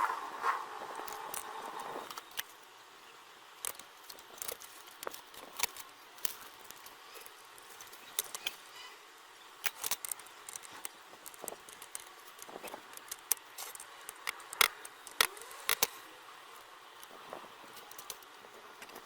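Small metal tools and parts clicking and tapping irregularly on a workbench during the restoration of an amplifier. A steadier noise cuts off about two seconds in.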